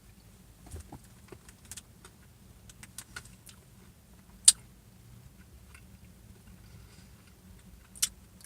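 Light clicks and taps from handling a plastic dessert cup and spoon, with two sharper clicks about four and a half and eight seconds in, over a low steady hum.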